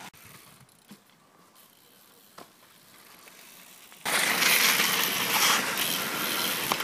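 Near silence with a couple of faint clicks, then about four seconds in a loud, steady rushing noise starts abruptly: the camera's own outdoor sound at the dirt jumps.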